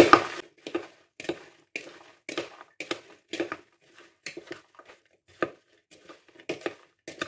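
A metal spoon stirring diced apples with raisins, sugar, cinnamon and toasted breadcrumbs in a glass bowl. Each turn of the spoon makes a short scraping stroke through the moist fruit, about twice a second.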